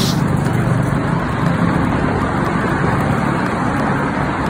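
Steady rumble of street traffic, an even wash of road noise with no distinct events.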